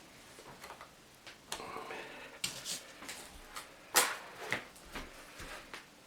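Handling knocks and clicks as a bookshelf speaker cabinet is turned over by hand to loosen its stuck bass/midrange driver: scattered light knocks, the sharpest about four seconds in.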